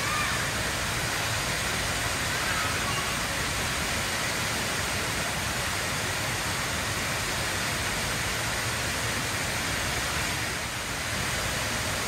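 Steady, even rush of a tall indoor waterfall, the Rain Vortex, falling from a glass dome into a basin. A few faint short chirps sound above the rush near the start.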